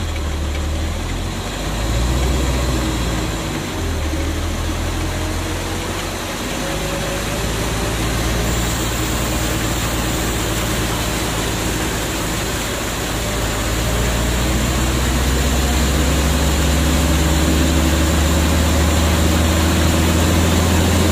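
Motorboat engine running steadily, its pitch rising in the second half as it picks up speed, over the rushing of floodwater.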